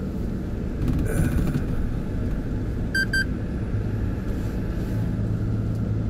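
Steady low engine and road rumble inside the cab of a four-wheel-drive truck driving slowly on a narrow road. Two short electronic beeps come about three seconds in.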